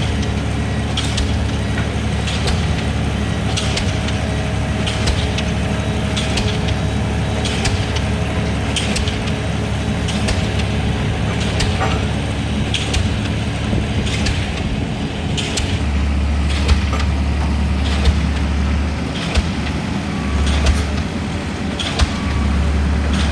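DD65 diesel pile hammer driving a 600 mm concrete pile, its blows landing roughly once a second over the steady low drone of the rig's engine.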